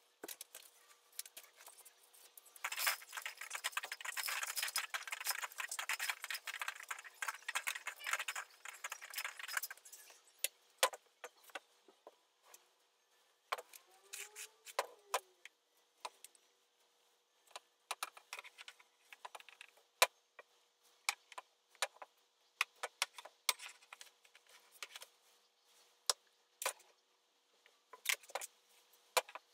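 Light metallic jingling and rattling of curtain rod hardware as a curtain is handled at its rod. The dense rattling of the first ten seconds or so thins out to scattered clicks.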